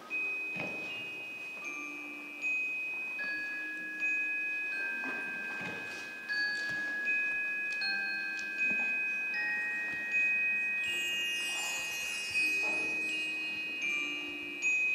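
Middle-school percussion ensemble playing a slow passage on mallet percussion: bell-like notes struck about every second and a half, each left to ring on under the next. About eleven seconds in, a high shimmering wind-chime sweep washes down over the held notes.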